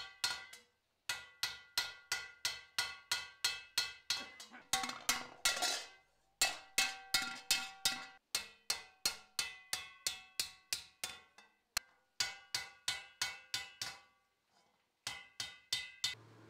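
Hammer blows on iron against an anvil, each strike ringing metallically, about three a second in several runs broken by short pauses. A short hiss runs under the blows about five seconds in.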